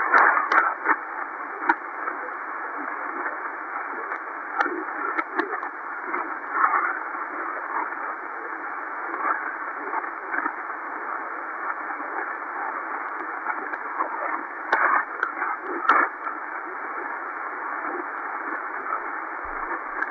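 Shortwave static from an XHDATA D-808 receiver's speaker in upper-sideband (SSB) mode, on the 6676 kHz Mumbai Volmet channel. It is a steady narrow-band hiss with scattered crackles, a few of them louder near the start and again about three quarters of the way through.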